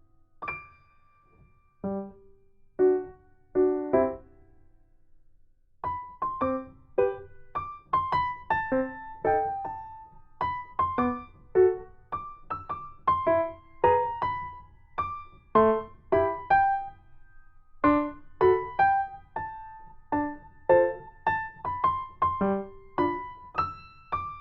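Background piano music: sparse chords for the first few seconds, then a gentle, steady run of melody notes.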